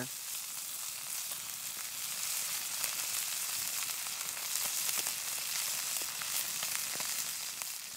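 Mallard duck breasts searing in olive oil in a cast iron skillet: a steady sizzle with scattered small pops and crackles.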